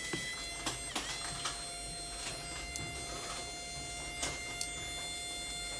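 Sharp little clicks and taps of a precision screwdriver working the small screws of a smartphone's inner frame. Underneath runs a steady high whine with several tones.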